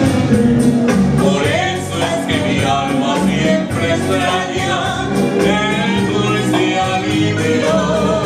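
A man and a woman singing a Latin American song as a duet, with rhythmic accompaniment.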